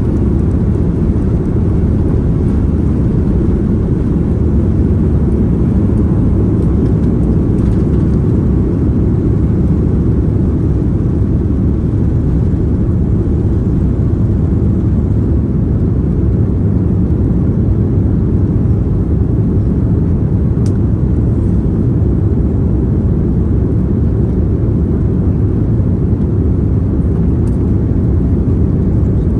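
Steady low rumble from an Airbus A340-300 airliner, even and unchanging throughout.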